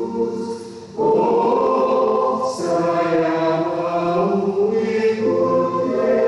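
Mixed choir of sopranos, altos, tenors and basses singing a hymn in long held chords. The sound thins out, then the voices come back in loudly about a second in and hold chords that shift a few times.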